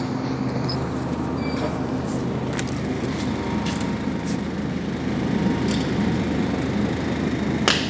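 Steady supermarket background noise with a low hum, a few light clicks, and one sharper click near the end.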